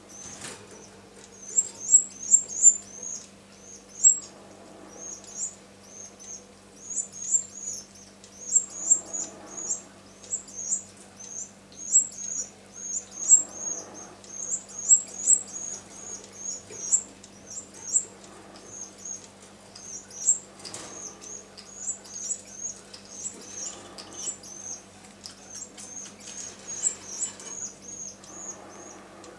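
A 14-day-old canary nestling's begging calls: quick clusters of short, high-pitched cheeps, over and over, the sign of a hungry chick begging its mother for food. A faint steady low hum sits underneath.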